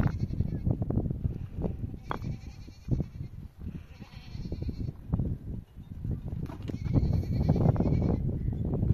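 Livestock bleating about three times, over a low rumble with scattered knocks.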